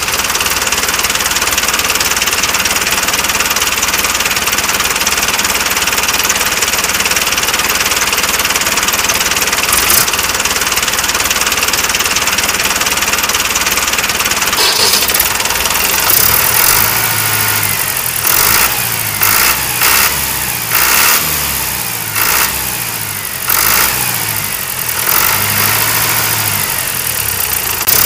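Tractor engine running steadily, then from a little past halfway a low, rhythmic chugging with several short louder surges.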